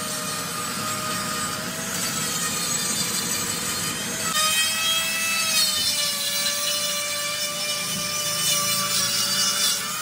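Die grinder running steadily as it grinds metal inside a Massey Ferguson tractor's differential housing, giving a continuous high whine over a rough grinding noise. About four seconds in, the whine takes on a fuller, brighter set of overtones.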